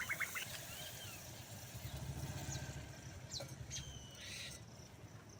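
Faint outdoor ambience: a few short bird chirps, and a low engine rumble that swells and fades around the middle, like a vehicle passing at a distance.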